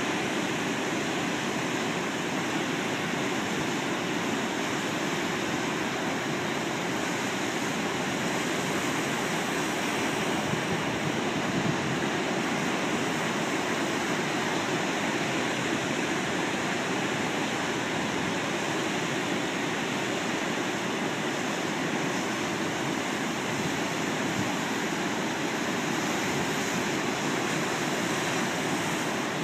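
Ocean surf breaking, heard as a steady, even roar of rushing water without separate crashes standing out.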